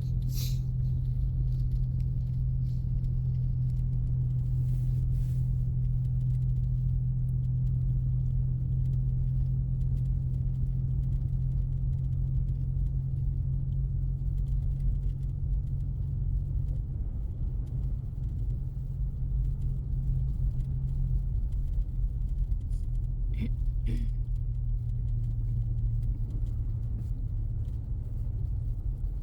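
Steady low engine drone and road rumble inside the cabin of a 2024 Ford Mustang EcoBoost with its turbocharged 2.3-litre four-cylinder, cruising at an even speed on a snow-covered road.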